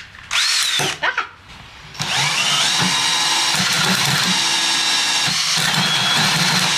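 Handheld electric power tool cutting plywood: two short bursts of the motor, then about two seconds in it spins up with a rising whine and runs steadily through the cut. The user calls the sound terrible and suspects the tool is cheap.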